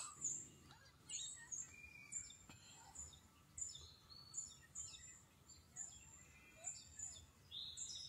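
Faint chirping of small songbirds: short, high notes, some sliding downward, about two a second, over a faint low background hiss.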